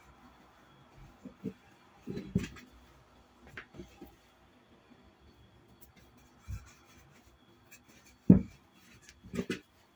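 Soft, scattered knocks and thumps of a wooden rolling pin and hands working a sheet of dough on a tabletop, with a cluster of light knocks about two seconds in and the loudest thump a little after eight seconds, followed by a few more.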